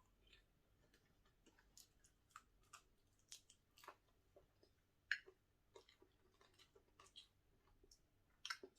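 Faint close-up chewing: irregular wet mouth smacks and clicks of someone eating, the loudest a little after five seconds in.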